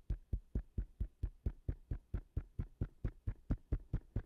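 Fingertips tapping on the face just below the eyes, above the cheekbones: a steady run of quick taps, about four or five a second.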